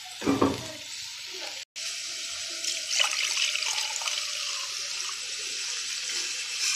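Tap water running in a steady stream into a metal pot, splashing as it fills. It starts after a brief dropout about a second and a half in; before that, a short scrape of stirring in the pan.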